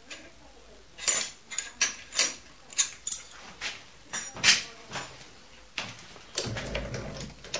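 Metal hand tools being picked up and set down on a wooden workbench: a run of about a dozen sharp clinks and knocks over some five seconds, then a short, denser rustling clatter near the end.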